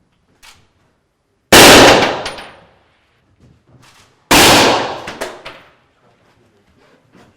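Two shots from an SVCh-308 Chukavin .308 sniper rifle, about three seconds apart, each dying away over about a second of echo. A couple of short sharp clicks come just after the second shot.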